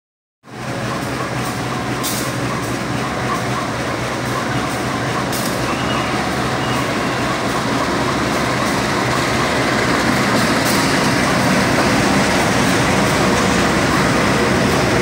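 Diesel locomotive hauling stainless-steel passenger coaches into a station: a steady engine drone with wheels rolling on the rails, starting abruptly about half a second in and growing a little louder as the coaches pass, with a few sharp clicks.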